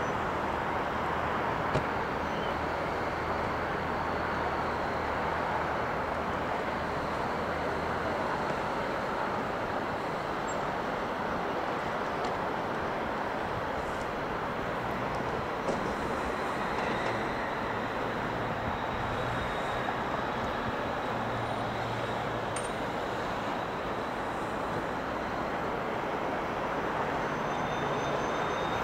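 Steady, even airport background noise: a continuous distant hum of engines and traffic with no distinct events, and a faint high whistle at times.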